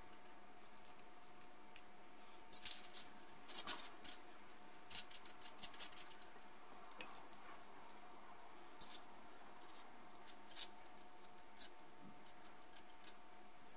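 A metal spoon and a plastic spoon clicking and scraping against each other and on paper cupcake liners as sticky coconut macaroon mixture is scooped and pressed into a muffin tin. The light clicks come in scattered clusters, busiest in the first half.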